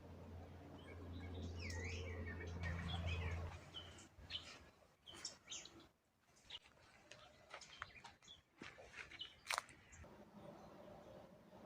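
Birds chirping, several short curved calls over a low steady hum that stops about three and a half seconds in. This is followed by a scatter of brief sharp chirps and clicks, the loudest about nine and a half seconds in.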